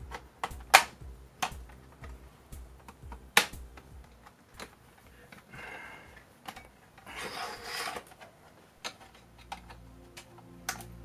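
Plastic clicks and snaps from a laptop's bottom case plate being pried and worked loose, its snap-fit clips popping one after another. The sharpest snaps come in the first few seconds, with a couple of longer scraping sounds in the middle.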